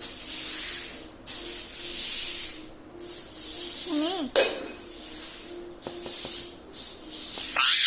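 Ring-necked parrot vocalizing: a series of raspy hissing sounds, a short wavering call about four seconds in, and a loud sharp rising squawk near the end.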